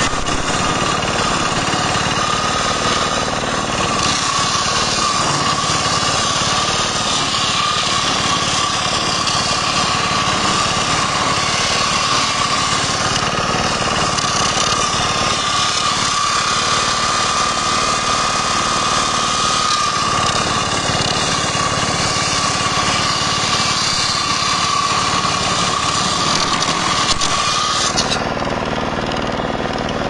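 Large circular saw blade on a homemade bench sawmill ripping a squared wooden timber lengthwise, over a steady whine from the spinning blade. The cutting noise sets in about four seconds in and stops suddenly near the end as the cut runs through, leaving the blade spinning free.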